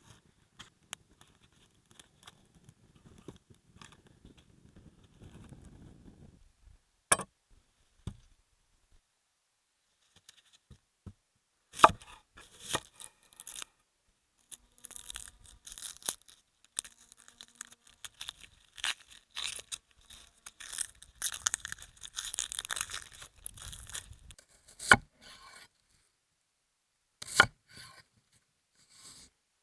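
Food-preparation handling sounds: tearing and rustling, densest in the middle, broken by a few sharp knocks.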